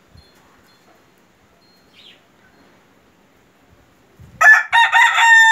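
Polish rooster crowing once, starting about four seconds in: a choppy opening, then a long held note.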